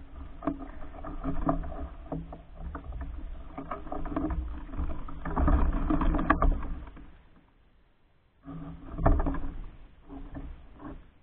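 Snow shovel scraping and pushing snow in repeated strokes. A long run of strokes stops for about a second near the two-thirds mark, then a strong stroke follows.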